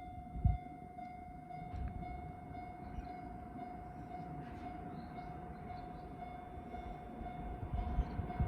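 Japanese railway level-crossing alarm of the older, pre-renewal type ringing steadily on one pitch, over a low uneven rumble that grows louder near the end as a train comes.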